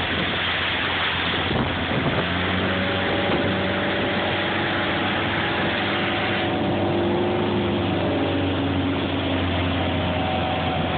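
A motorboat's engine running steadily while the boat is under way, under a rush of wind and water noise. The hiss eases a little about six and a half seconds in.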